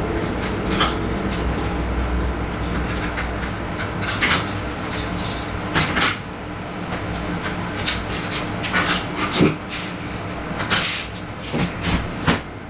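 Plastic panels and parts of a Daikin air conditioner being handled: irregular sharp clicks and knocks, a dozen or so, over a steady low hum.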